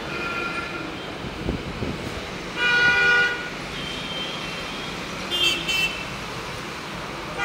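Vehicle horns honking in street traffic over a steady traffic hum: one longer honk about three seconds in, the loudest sound, and shorter ones a couple of seconds later.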